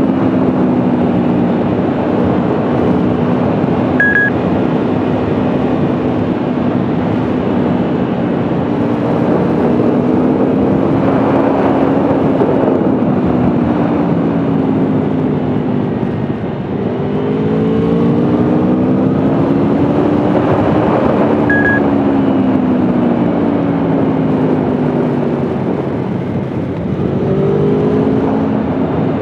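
2021 Aprilia Tuono V4 1100's V4 engine under way, its revs rising and falling over and over, with two brief drops in level where the throttle eases, a little past halfway and near the end.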